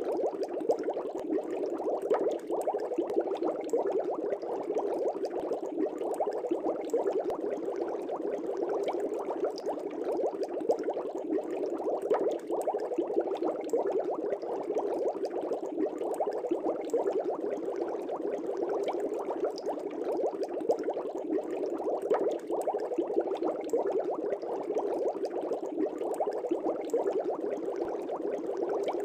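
Air bubbles streaming up through the water of a fish tank, a steady churning babble made of many small pops and gurgles, with no let-up.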